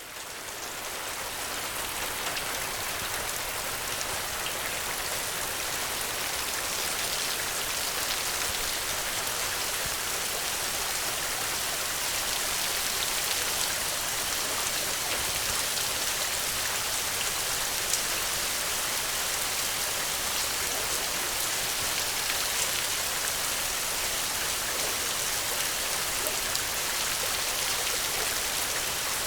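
Steady rain falling on the ground: a dense, even patter with a few sharper single drop hits. It fades in over the first second or two, then stays level.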